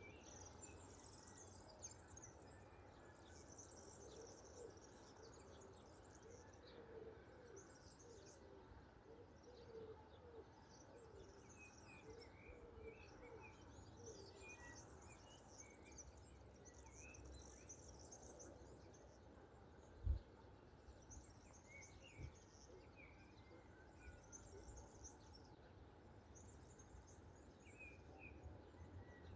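Faint birdsong: small songbirds chirping and twittering high up, with a dove cooing low and softly in repeated phrases. A brief low thump comes about twenty seconds in, and a smaller one a couple of seconds later.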